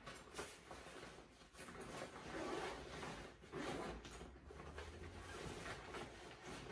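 Rustling and handling noise as items are rummaged out of a backpack, an uneven crinkle and scuff that comes and goes.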